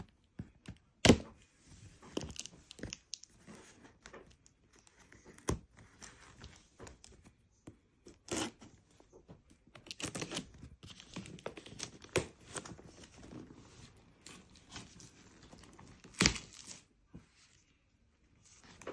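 Packaging being torn and crinkled by hand, with irregular rustling and a few sharp knocks, the loudest about a second in and near the end.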